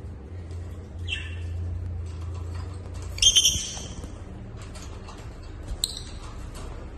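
Pet parrots calling: a short chirp about a second in, a louder burst of high-pitched calls around the middle, and one more sharp call near the end, over a steady low hum.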